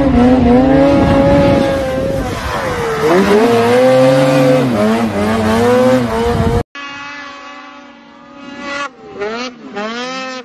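Snowmobile engines at high revs: one runs loud and steady, its pitch dipping and climbing back about three seconds in. After a sudden cut, another sled is heard quieter, revving up and down in quick blips.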